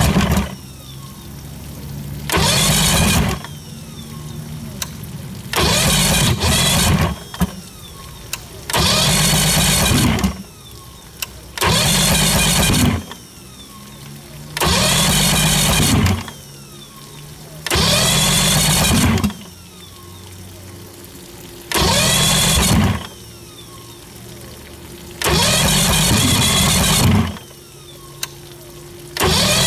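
1976 Mercury inline-six outboard running unevenly on the trailer. About every three to four seconds its sound surges loudly for a second or so, then drops back to a low, steady idle.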